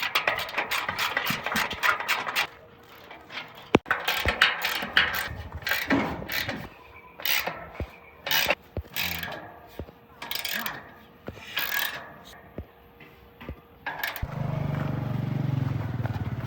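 Irregular knocks, scrapes and clatter of heavy gear being handled, with snatches of voices. About fourteen seconds in, an engine starts and runs steadily.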